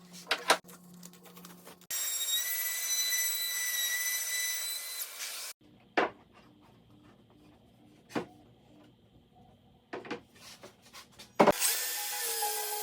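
A power tool cutting wood in two short runs, each with a steady whine, one from about 2 to 5.5 seconds in and another starting near the end. In between, a few sharp wooden knocks and clicks.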